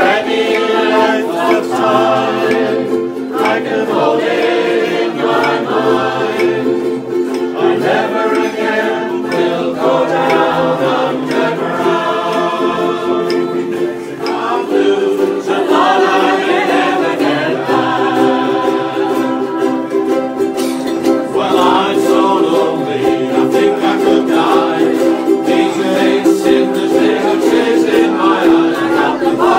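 Ukulele ensemble strumming a song together while the group sings along in chorus.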